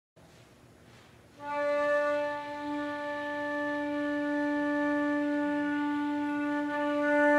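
Flute and B-flat clarinet duo opening a slow movement with one long held note that enters about a second and a half in, after faint room tone.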